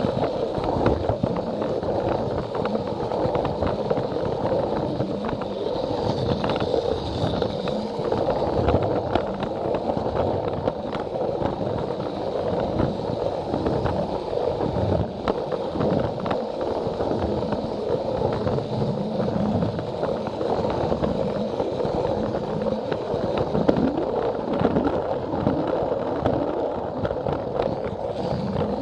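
Battery-powered Plarail toy train running along plastic track: a steady whir from its small motor and gearbox, with wheels rattling and clicking over the track joints.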